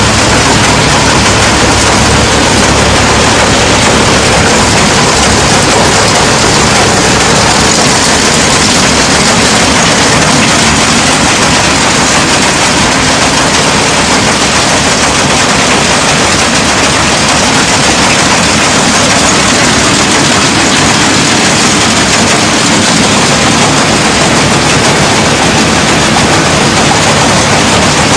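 A combine harvester header running on its first test start after repair, giving a loud, steady, rapid mechanical clatter from the driven cutter knife and header drive over engine noise.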